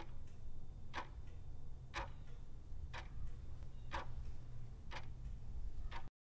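Clock ticking steadily, one sharp tick about every second, over a low steady hum. The sound cuts off suddenly about six seconds in.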